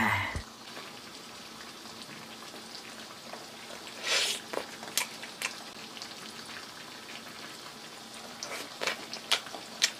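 A loud burp cuts off just after the start. Then a faint steady hiss with a few light clicks and taps scattered through the rest.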